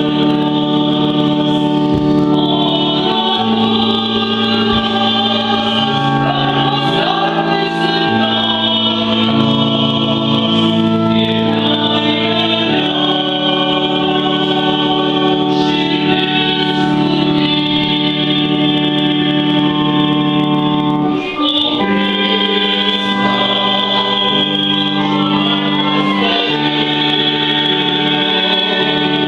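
A hymn sung by a group of voices with organ accompaniment, the organ holding chords that change every second or two. There is a brief break in the music about two-thirds of the way through.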